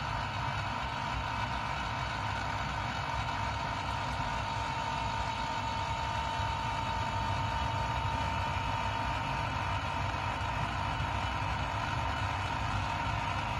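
Radio Shack 15-1245 antenna rotator's electric motor and gear train running steadily as it turns the mast clamp: an even mechanical hum with a steady high whine.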